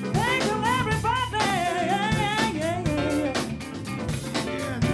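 Female soul singer singing ornamented, bending vocal runs over a live band's groove of drums, bass and keys. The runs settle about three seconds in, and a pitch slides steeply down near the end.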